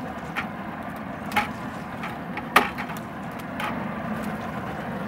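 A metal pipe striking a freshly caught mackerel hanging at a boat's side: a few sharp knocks, the loudest about two and a half seconds in, over a steady low drone.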